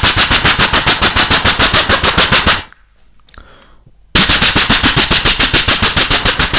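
Vocal imitation, by mouth into a microphone, of a Stryker RWS heavy machine gun firing: two long bursts of rapid, evenly spaced shots. The first stops after about two and a half seconds, and the second starts about four seconds in.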